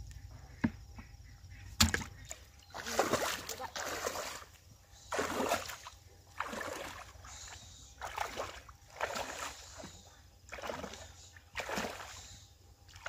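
Shallow pond water splashing and sloshing as a person wades through it and sweeps a hand net through the water, about one splash a second.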